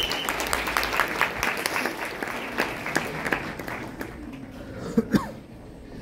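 Audience applauding, the clapping thinning and dying away after about four seconds, with two short louder sounds about five seconds in.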